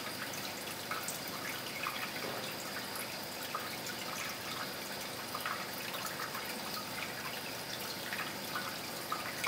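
Aquarium water trickling and dripping steadily, with many small irregular droplet splashes over a constant watery hiss, and a faint steady high-pitched whine underneath.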